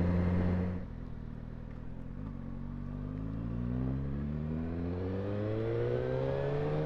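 Motorcycle engine on the road: the throttle eases off just under a second in, then the engine climbs steadily in pitch for several seconds as the bike accelerates.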